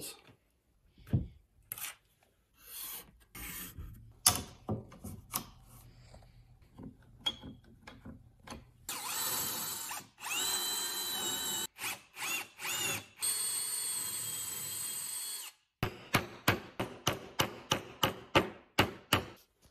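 A hand drill bores dowel holes through a drilling jig into a wooden shelf board. The motor whine rises as it spins up and stops and starts a few times in short bursts. It gives way to a hammer tapping dowel pins into the holes, about three sharp strikes a second, after a few seconds of scattered knocks and clicks at the start.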